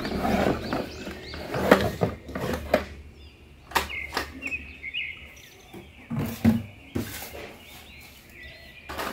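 Cardboard box rustling and sharp plastic knocks as a toy is handled, unpacked and set down on a hard floor. Birds chirp faintly in the background.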